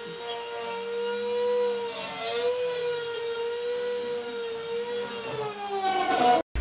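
CNC router spindle (a wood router) whining steadily at high speed as the cutter mills wood, its pitch wavering slightly with the cutting load. Near the end the pitch bends, and then the sound cuts off abruptly.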